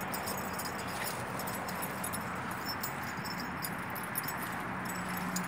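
Steady rustling of tall weeds and grass as a small dog pushes through them, with faint light metallic jingling from its collar.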